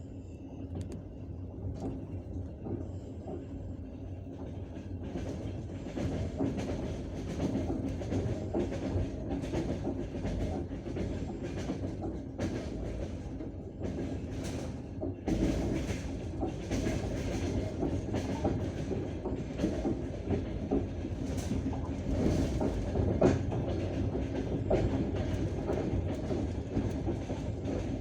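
Passenger train carriage running at speed: a steady low rumble with the wheels clacking over rail joints, the clacks becoming louder and more frequent about five seconds in. Heard from inside the carriage.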